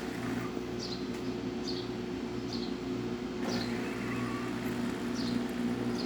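DeLonghi Magnifica espresso machine's newly replaced water pump humming steadily as it pushes water through the brew unit for a test shot. Faint short high chirps repeat about once a second over the hum.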